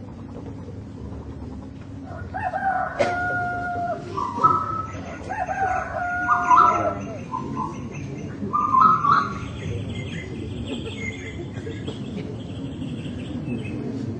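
Rooster crowing three times, each a long drawn-out call, with small birds chirping behind from the second crow onward.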